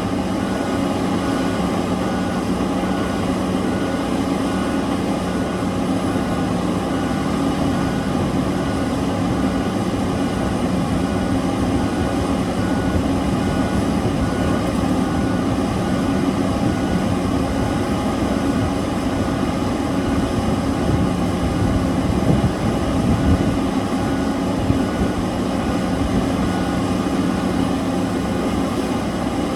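Heavy mining machinery's large diesel engines run steadily under load during excavator loading of blasted rock. A faint high beep repeats evenly throughout, and a few louder knocks come near the end.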